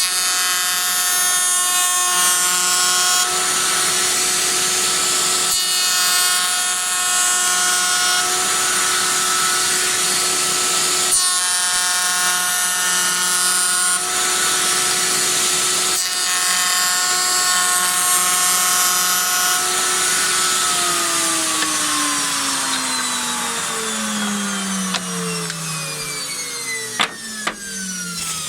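Electric router/milling machine running with a steady whine while wooden workpieces are fed past the cutter, the cutting hiss coming in several passes with brief gaps. About twenty seconds in the motor is switched off and winds down, its whine falling steadily in pitch, with a few clicks near the end.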